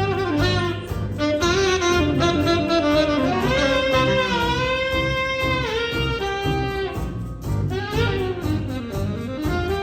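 Saxophone ensemble (alto, two tenors and baritone) with bass guitar and piano playing a jazz chart, the horns moving together in close harmony over a steady bass line, with a long held chord near the middle before the line drops.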